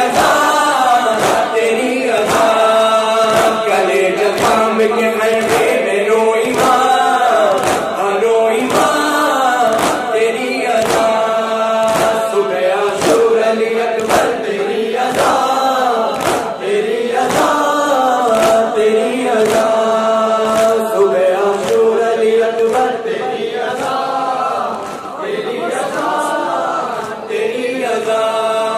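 Noha, a Shia lament, sung by male reciters through microphones, with a crowd of men chanting along over a steady, evenly spaced beat of palms striking chests (matam).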